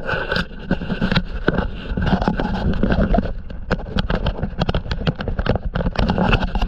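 Wind and handling noise on a hand-held camera's microphone: a steady low rumble with dense, irregular crackles and knocks.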